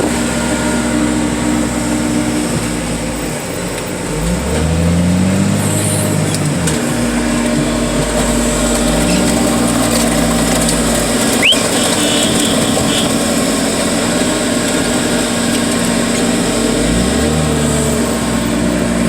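Heavy machinery's diesel engine running steadily, its speed rising and falling twice as the machine works, with one sharp knock about halfway through.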